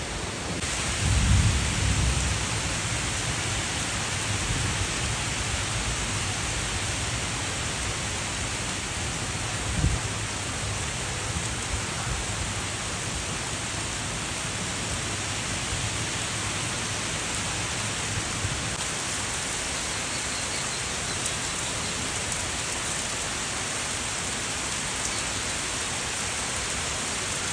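Steady rain falling, with a low roll of thunder about a second in and a short low thump near ten seconds.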